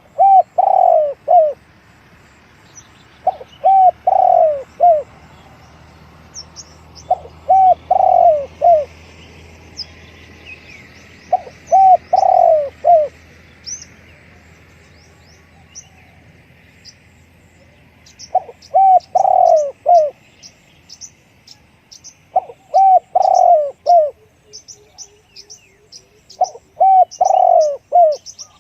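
Spotted dove cooing its song phrase seven times, a few seconds apart, with small birds chirping faintly and high in the background.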